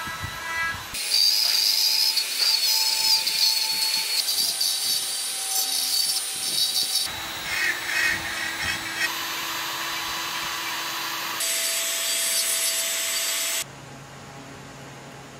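Handheld rotary tool with a small carving burr grinding into wood, its motor whine holding one steady pitch within each short stretch and jumping to a different pitch where the stretches change abruptly, several times. Near the end it drops to a much quieter low hum.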